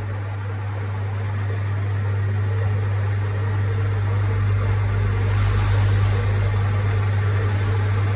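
Manual metal lathe running with a steady motor hum, a rougher, brighter noise building up a few seconds in, as the reground carbide insert is tried on a 10 ly cut.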